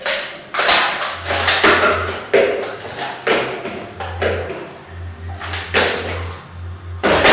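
Clear plastic cups clacking on a tabletop as they are pulled off a stack and set down upside down one by one: about ten sharp knocks, each ringing off briefly, spaced roughly half a second to a second apart.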